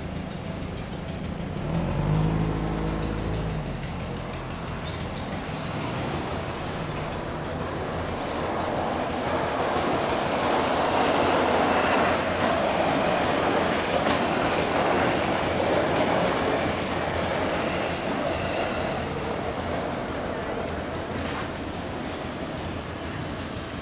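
Seibu 10000 series 'New Red Arrow' seven-car electric limited express train passing over a level crossing. Its noise builds to a peak about halfway through and then fades. A road vehicle's engine rumbles briefly about two seconds in.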